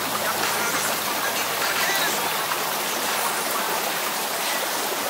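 Shallow rocky creek running steadily over stones.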